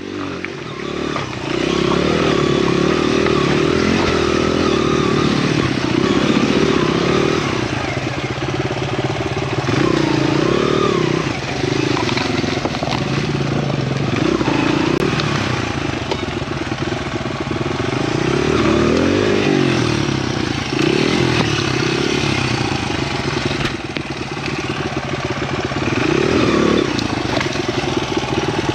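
Honda XR100R dirt bike's small single-cylinder four-stroke engine revving up and down under load on a slow, rocky climb, the throttle rising and falling every second or two.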